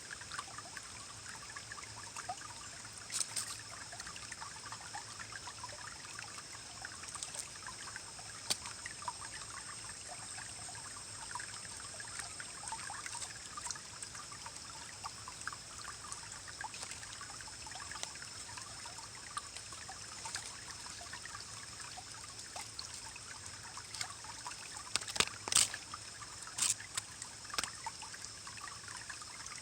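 Small forest stream trickling and rippling over rocks, with a steady churning flow full of little bubbling ticks. A few sharper clicks stand out, loudest in a short cluster near the end.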